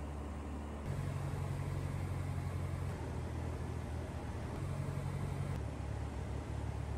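Piper Cub's engine and propeller droning steadily in level flight, heard from inside the cabin with air rushing past. The low tone shifts abruptly about a second in and again a few times after.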